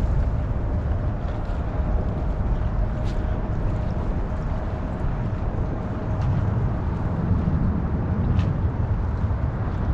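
Wind buffeting the microphone outdoors, a steady low rumble, with a few faint ticks.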